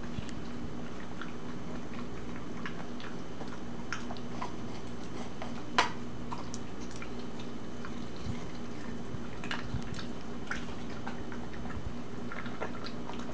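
A corgi eating from a plate: wet chewing and licking with scattered small clicks, and one sharper click about six seconds in.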